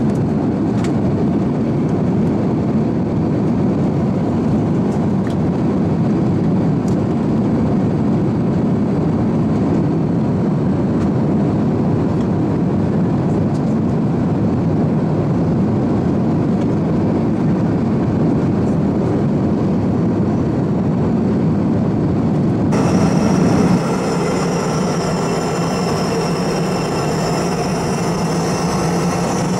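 Airbus A350-900 cabin noise in flight at a window seat: a steady roar of airflow and Rolls-Royce Trent XWB engines. About 23 seconds in the sound changes abruptly to a roar with several steady whining engine tones over it.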